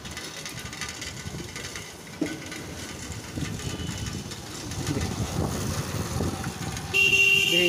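Street noise on a market road with light traffic passing. A loud, steady, high-pitched tone cuts in near the end.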